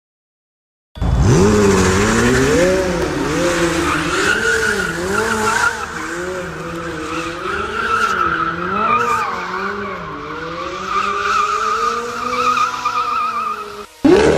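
McLaren supercar's twin-turbo V8 revving up and down over and over while its rear tyres squeal and skid through donuts. The sound starts about a second in.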